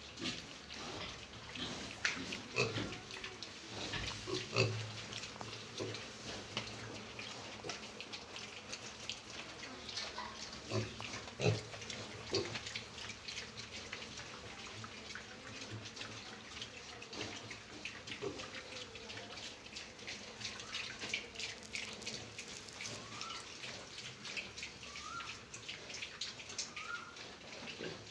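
Piglets eating feed: a steady stream of wet chewing and smacking clicks, with occasional grunts.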